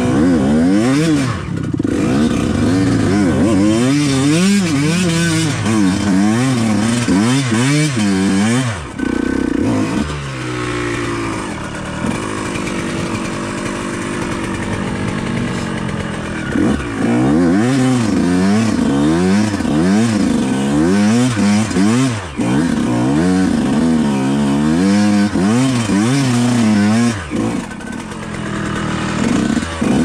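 Yamaha YZ125X two-stroke dirt bike engine being ridden hard, its revs rising and falling over and over. About a third of the way through it holds lower and steadier for a few seconds, then goes back to quick rev swings.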